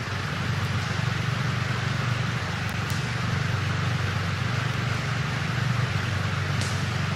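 Steady low rumble under a continuous wash of rushing water, as of a steamship under way at sea.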